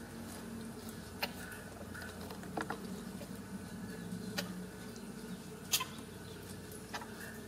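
Ragdoll mother cat purring steadily close up, with a handful of short sharp clicks scattered through it.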